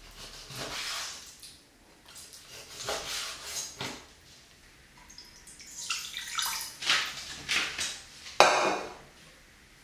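Kitchen knife cutting raw chicken on a wooden board, several separate strokes. About six seconds in, dashi is poured into a nonstick pan with splashy water sounds, and a louder splash near the end is the loudest sound.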